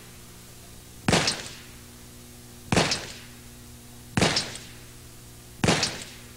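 .357 Magnum revolver fired four times in slow, deliberate single shots about one and a half seconds apart, each shot a sharp report with a short echo.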